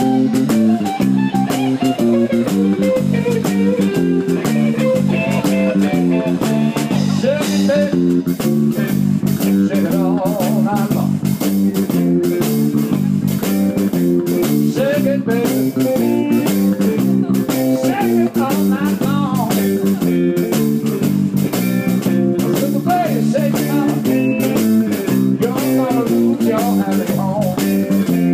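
Live blues trio playing: a five-string Warwick Corvette bass run through a DNA-800 class D amplifier into two DNA 1x12 cabinets, playing a bass line that moves note to note, with guitar bending notes over it and a drum kit keeping time.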